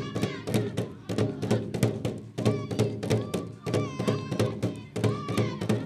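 Large cylindrical drums beaten with sticks in a fast, steady rhythm of about five strokes a second. At times high, wavering held tones sound over the beat.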